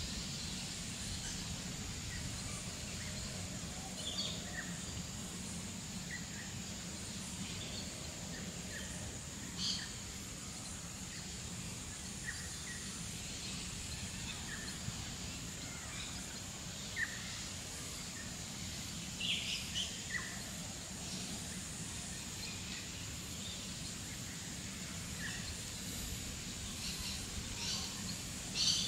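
Wild birds giving short, scattered chirps a few times over a steady background hum, which sounds like a distant jet and comes from a hospital. A thin high tone runs continuously underneath.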